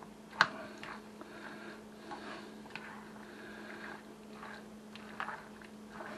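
A spoon stirring thick, mayonnaise-coated ham salad in a glass bowl: wet, squishy mixing with irregular scrapes and knocks of the spoon against the glass, the loudest a sharp knock about half a second in.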